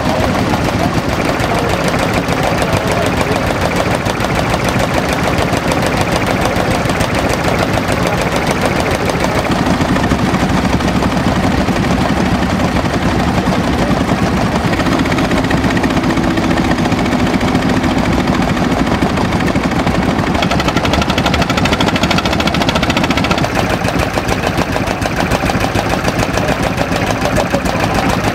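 Old stationary engines running, with a steady stream of sharp exhaust beats from an open exhaust pipe.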